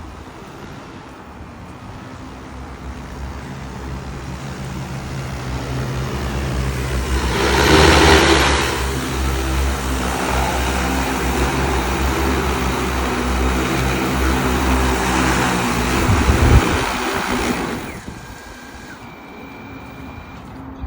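Large agricultural spray drone's electric motors and propellers spinning up. They run with a steady hum of several tones, loudest about eight seconds in, then stop near the end.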